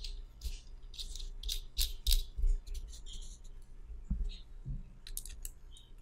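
Small metal parts of a rebuildable tank atomizer (RTA) clicking and scraping in the hands as it is taken apart: a run of quick, irregular clicks with a few soft knocks.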